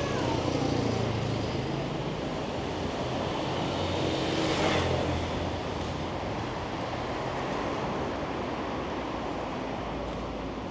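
City street traffic: a steady rush of cars, with one vehicle passing close and louder about four to five seconds in.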